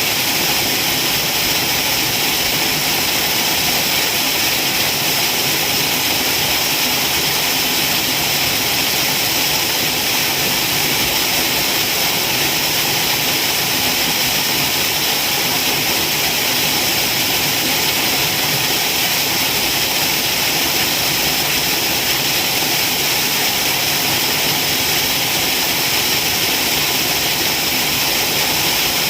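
Waterfall: falling water in a steady, unbroken rush, hissy and even throughout.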